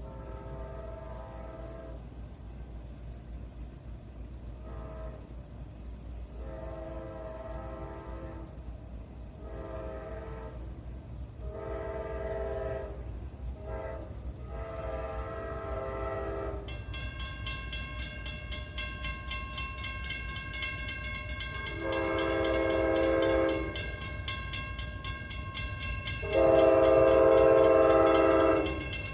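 Amtrak passenger locomotive's multi-chime air horn sounding a long string of blasts, short and long, growing louder as the train approaches; the last blast is the loudest. About halfway through, a steady high ringing starts.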